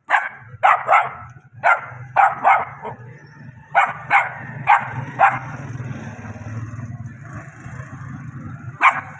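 Puppies barking: short, sharp yaps, about ten in quick succession, often in pairs, over the first five seconds, then one more near the end. A steady low hum runs underneath.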